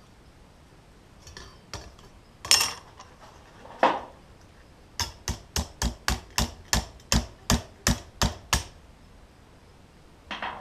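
Hammer striking steel: two separate clanks, then a quick, even run of about a dozen light taps at roughly three a second.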